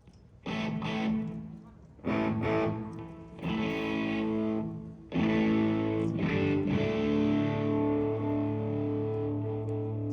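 Electric guitar through an amplifier with distortion, playing chords during a sound check: four chords struck a second or so apart, the last one held and left ringing.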